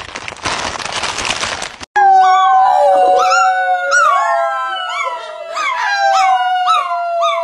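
A crisp bag crinkling as it is torn open for about two seconds. Then, after a sudden cut, a chihuahua howls along with a woman. A long held note runs under the dog's repeated short rising-and-falling howls, about two a second.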